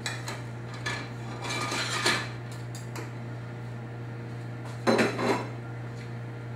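Kitchen utensils and dishes clinking and clattering: a few light knocks, a longer clatter about two seconds in and a louder one about five seconds in, over a steady low hum.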